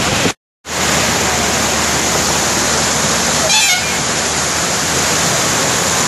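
Muddy floodwater swollen by prolonged rain rushing and churning over rocks: a loud, steady rush of water. The sound cuts out briefly near the start, and a short faint tone rises through the rush about three and a half seconds in.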